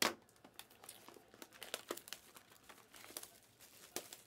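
Plastic shrink wrap on trading card boxes being torn open and crumpled: a loud crackle at the start, then irregular crinkling and small snaps.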